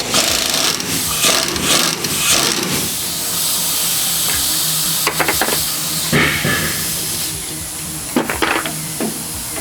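The 18mm bolt of a rear shock absorber being loosened with a socket and wrench: rattling tool noise and sharp metallic clicks and clanks over a steady hiss, with the busiest rattling in the first few seconds and clusters of clanks about five and eight seconds in.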